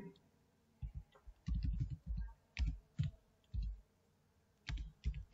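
Computer keyboard being typed on: slow, irregular keystrokes, about a dozen short clicks.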